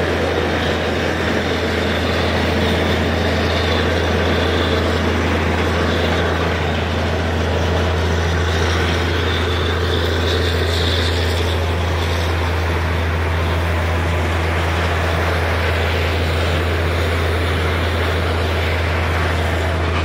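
Truck-mounted borewell drilling rig's engine running at a steady, unbroken drone with a strong low hum.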